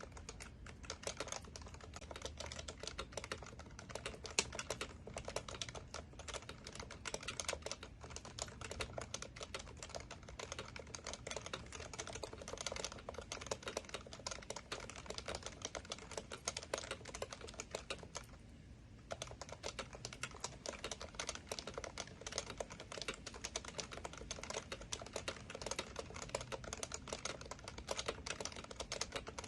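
Steady fast typing on an HHKB Professional Classic keyboard, its Topre tactile capacitive key switches clacking in quick succession. The typing breaks off for about half a second roughly two-thirds of the way through.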